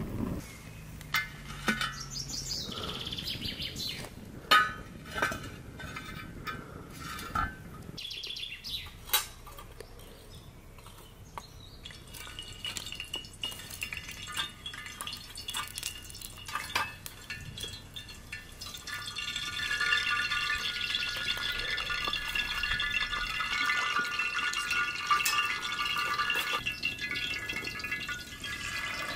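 Birds chirping and singing, getting denser and louder in the second half, over scattered light clinks and knocks of kitchen utensils.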